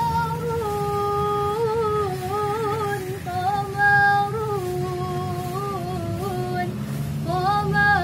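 A young female voice singing unaccompanied, a slow Arabic-style melody of long held notes ornamented with quavering turns.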